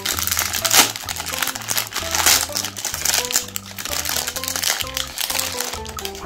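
Plastic Magnum ice cream bar wrapper crinkling as it is pulled open and peeled back by hand, with the loudest crackles about a second in and again a little past two seconds. Background music plays underneath.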